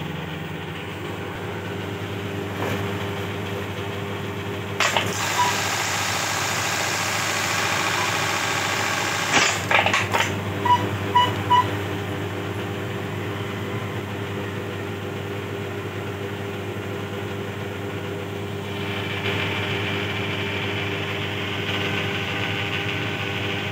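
Dürkopp Adler 558 eyelet buttonhole machine running: a steady motor hum, with a louder stretch of rapid stitching from about five to ten seconds in that ends in a few sharp clacks, and another louder stretch of machine noise near the end.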